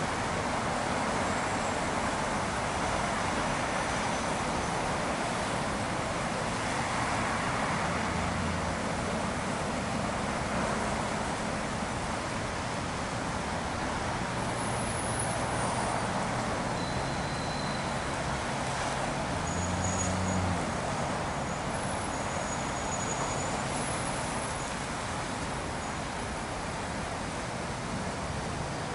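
Steady city road traffic noise: cars and a bus passing, with low engine hum that swells and fades, loudest about two-thirds of the way through.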